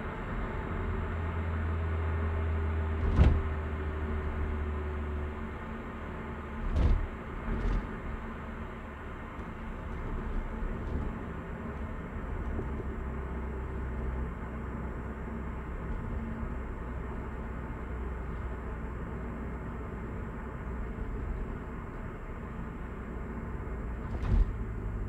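Steady engine and road noise inside the cabin of a Hyundai Avante AD (Elantra) on the move. A sharp thump comes about three seconds in, two more come around seven to eight seconds, and another comes near the end.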